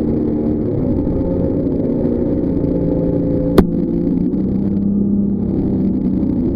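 Jetboat engine running steadily under way, its pitch drifting slightly, with a single sharp knock about halfway through.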